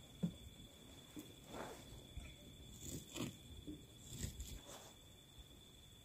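Faint scattered rustles and soft knocks of things being handled, over a steady high insect trill.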